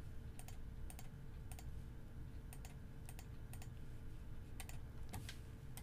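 Faint, irregular clicking at a computer's keyboard and mouse, several clicks in quick pairs, over a faint steady hum.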